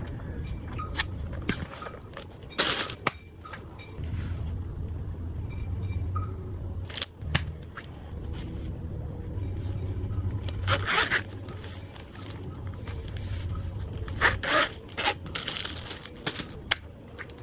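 Packaging being handled: irregular scraping and crackling, with a few louder brief rustles, over a low steady hum.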